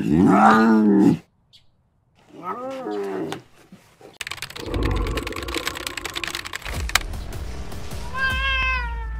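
Lion cubs calling as they wrestle: two short calls that rise and fall in pitch in the first three seconds, then a long rough, hissing stretch, and a high mew falling in pitch near the end.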